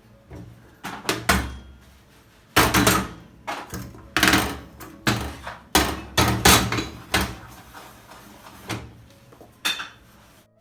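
A string of knocks and short clatters of objects being handled, about a dozen over eight or nine seconds, the loudest in the middle.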